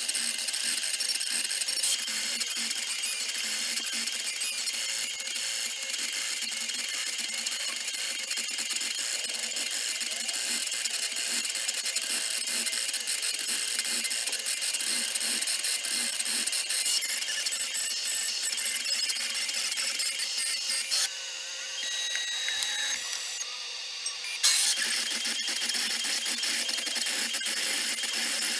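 CNC spindle with a fine engraving bit running and cutting into a clear plaque: a steady high-pitched whine and hiss. It drops away for a few seconds about three-quarters through, then comes back with a sharp knock.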